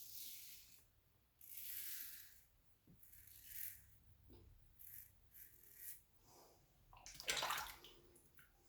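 A Carbon safety razor with a Personna Med Prep blade scraping through lathered stubble in about six short strokes, the blade audibly 'singing' on the whiskers; the loudest stroke comes near the end.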